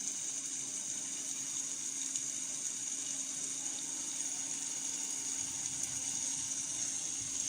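Mutton and ground masala paste sizzling in hot oil in a kadai, a steady hiss over a faint low hum, cutting off suddenly at the end.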